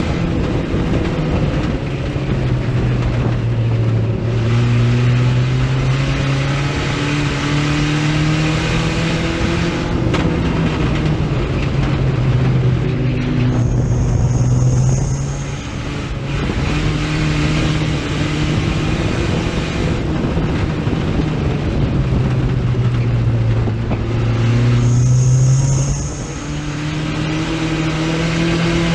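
Dirt track race car's engine, heard from inside the cockpit under racing load. Its revs fall and climb again in a repeating cycle, easing off into each turn and accelerating back out down the straights, over about two and a half laps.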